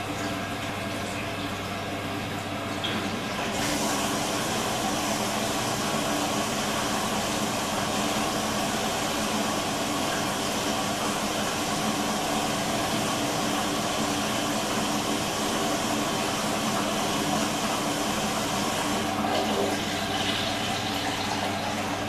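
Water rushing into a Beko front-loading washing machine as it fills, with the detergent drawer left open. The flow grows louder and brighter about three and a half seconds in and drops back a few seconds before the end.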